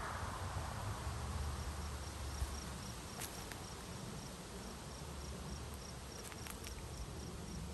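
An insect, likely a cricket, chirping in short high pulses at an even pace of about three a second, starting about a second and a half in, with a few faint clicks and a low rumble underneath.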